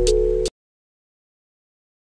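Background music with held notes, bass and a ticking beat, cut off abruptly about half a second in, followed by dead silence.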